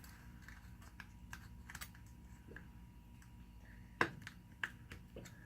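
Faint, scattered small metallic clicks and taps of a small hand tool working against the Spartan Locker's spring-loaded pin, compressing it to slip something under it. The sharpest click comes about four seconds in, with another shortly after.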